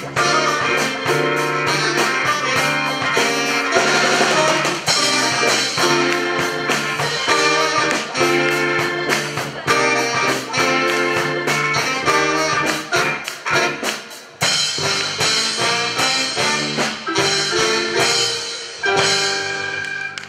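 Live instrumental music with a steady beat, played by an ensemble on stage; the piece stops right at the end.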